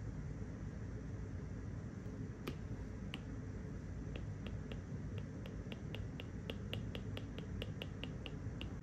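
Apple Pencil tip tapping on an iPad's glass screen during short painting strokes: a couple of single taps, then from about four seconds in a quick run of clicks, about four a second, over a steady low hum.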